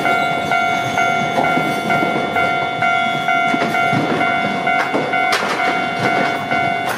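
Japanese level-crossing alarm sounding, a repeating electronic ding about twice a second, warning of an approaching train. A train passes close by under it, its wheels clattering louder about halfway through, with a couple of sharp wheel strikes near the end.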